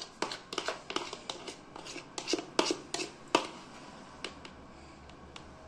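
Metal spoon clicking and scraping against a bowl while scooping whipped coffee foam. A quick run of light clicks and scrapes thins out to a few after about three and a half seconds.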